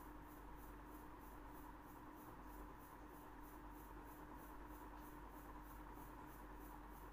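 Near silence with the faint scratching of a pen writing on paper, over a thin steady hum.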